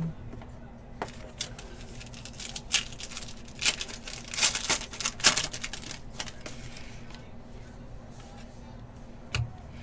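A trading-card pack's wrapper being torn open and crinkled by hand: a run of sharp rips and crackles over a few seconds, busiest in the middle, then settling as the cards come out.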